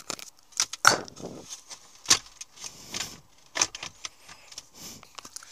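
Hands fumbling around a car's centre console and dashboard: irregular clicks, taps and short rustles of plastic trim and loose wiring, with sharper knocks right at the start and about a second in.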